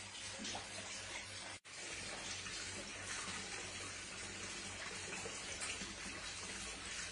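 Steady rush of running water in a fish holding tank, with light splashing as hands and a large fish move in the water, over a low steady hum. The sound drops out for an instant about one and a half seconds in.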